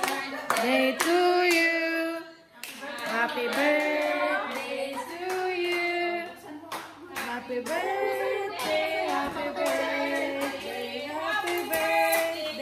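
A group singing a birthday song together, with hands clapping along.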